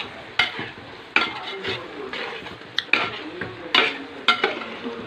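A spoon stirring thick chicken curry in a metal pot: about seven sharp scrapes and knocks against the pot, over a steady hiss from the simmering curry.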